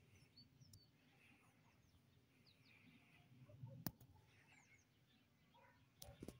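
Near silence with faint, scattered small-bird chirps and a single sharp click about four seconds in.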